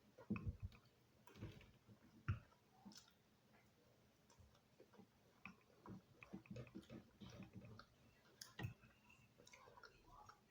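A person eating close to the microphone: irregular soft chewing sounds and small clicks, a denser run of them in the second half.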